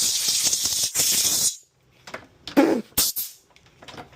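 Aerosol spray can hissing in long bursts onto a dirt-caked PS5 cooling fan, stopping about a second and a half in. A few light clicks and knocks of handling follow.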